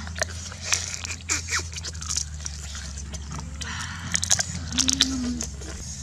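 Crunchy biting and chewing of fresh cucumber and cooked crab, heard as repeated crisp cracking bites over a steady low hum.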